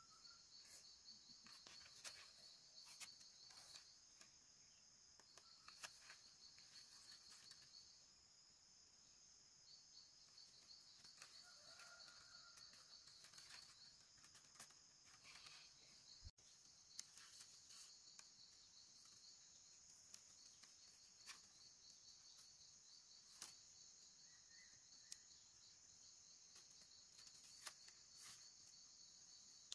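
Faint insects chirping steadily in a rapid high-pitched pulsing trill, with scattered faint clicks and taps.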